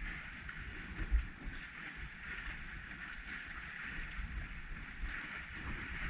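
Wind buffeting the microphone with a low rumbling, over choppy water washing against a kayak, with a stronger low buffet about a second in.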